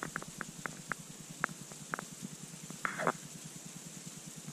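Sleet pellets ticking irregularly, a sharp tick every fraction of a second, over a steady faint hiss, with a brief rustle about three seconds in.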